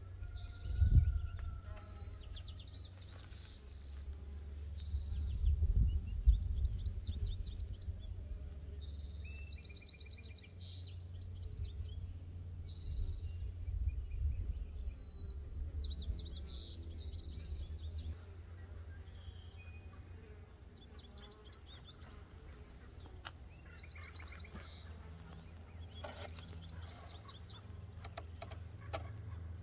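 Songbirds chirping and trilling in short repeated phrases throughout, over a steady low rumble that swells about a second in and again around five to seven seconds in.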